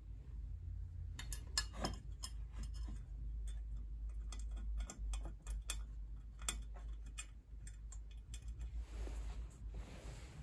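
A run of small, irregular metal clicks and taps, several a second, from handling wires and crimped spade connectors while rewiring a sandwich toaster, with a softer rustle near the end.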